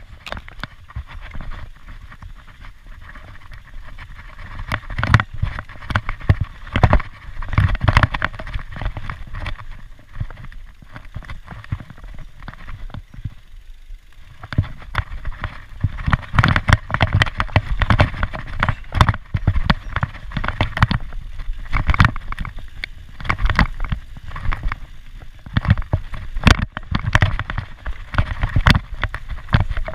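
Mountain bike ridden fast down a dirt forest trail: tyre noise on the dirt with frequent sharp knocks and rattles from the bike hitting bumps. There is a brief lull about halfway through.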